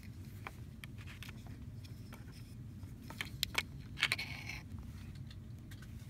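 Plastic packaging and a small plastic adapter being handled on a table: scattered light clicks and taps, a few louder clicks a little after three seconds in, and a short plastic crinkle about four seconds in, over a low steady hum.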